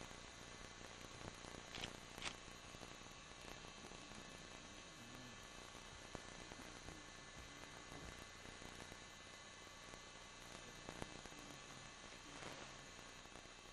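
Near silence: a faint steady hum and hiss, with a few faint clicks.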